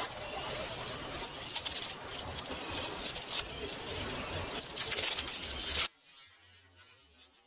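Tape and paper wrapping being peeled and crumpled off a kitchen knife blade: steady crinkling with three louder tearing stretches, stopping suddenly about six seconds in.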